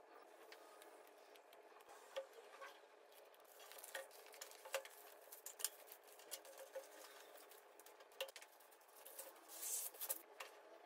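Faint paper handling: a roll of peel-and-stick wallpaper being unrolled and smoothed over a wooden tabletop, with scattered light taps and clicks and a short burst of crinkling near the end.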